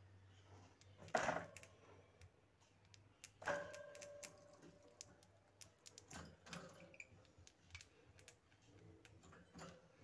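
Faint, scattered clicks and taps of budgerigars' beaks and claws on the wire cage and plastic perch, with a short squeak about three and a half seconds in.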